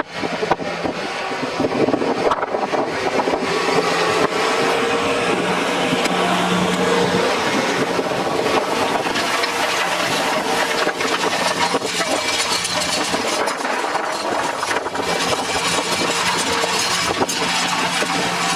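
Tractor engine running: a steady, loud drone with a constant low hum and a faint whine that rises a little in pitch partway through.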